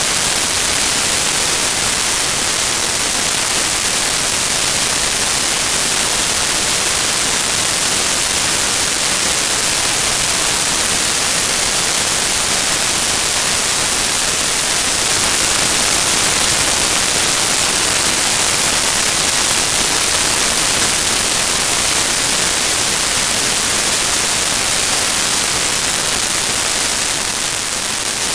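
Steady rush of wind and hiss on the microphone of a small camera mounted under the wing of an RC model plane in flight, with no motor tone standing out. It dips slightly near the end.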